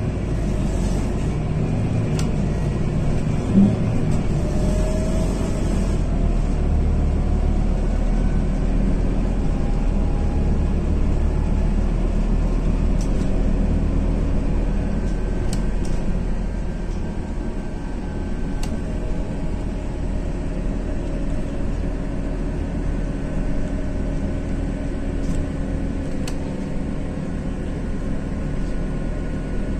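Cabin noise of a Scania CityWide 12LF CNG city bus under way: a steady low rumble of the gas engine and road. A faint rising whine comes a few seconds in, and there is one short knock about three and a half seconds in.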